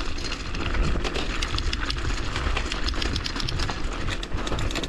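Bicycle rattling and clattering over rough ground, with irregular clicks over a steady low rumble.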